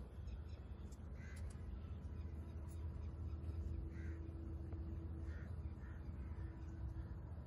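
Several short, faint bird calls spaced out over a few seconds, over a steady low outdoor rumble.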